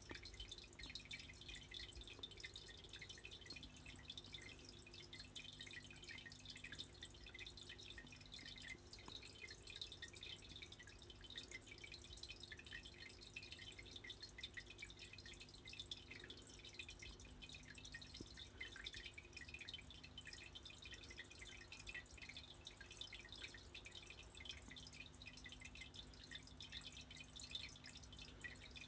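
Near silence: faint room tone with a steady low hum and a fine, faint crackle of tiny ticks.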